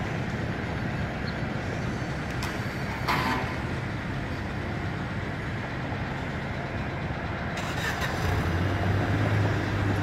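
Steady low rumble of motor-vehicle engine noise, with a brief louder sound about three seconds in, growing louder near the end.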